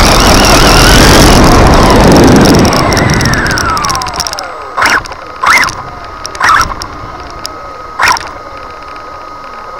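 RC car's 3650 brushless motor heard from the onboard camera: a whine over loud road noise at speed, its pitch falling as the car slows about three seconds in. Then four short loud bursts, and a faint steady high tone.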